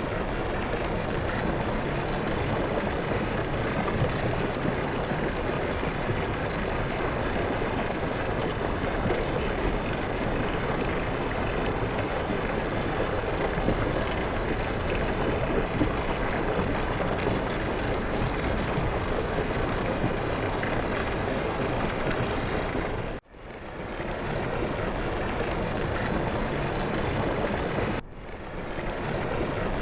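Steady rush of falling water from a waterfall. It cuts out abruptly twice, about two-thirds of the way through and again near the end, and swells back up each time.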